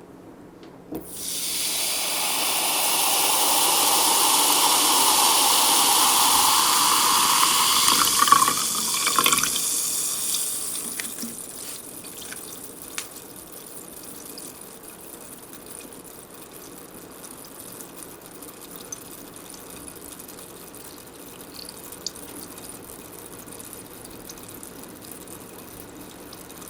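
Sparkling water poured into a glass: a loud stream for about nine seconds, its pitch rising slowly as the glass fills, then fizzing with small scattered bubble pops.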